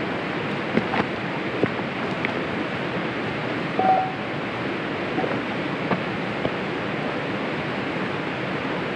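Steady rushing of wind and rain, with a few scattered sharp crackles from the campfire.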